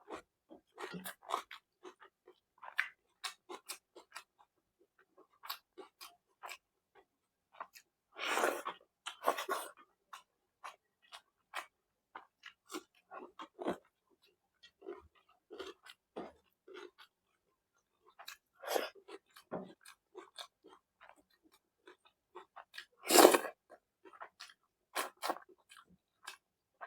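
Close-miked chewing and wet lip-smacking of a person eating curry with bread, as short irregular smacks and clicks. A few louder, longer bursts come about a third of the way in and again near the end.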